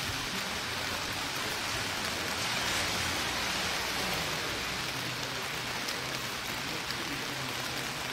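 Three 60-second colour-flame ground fireworks burning with a steady hiss, a little louder about three seconds in.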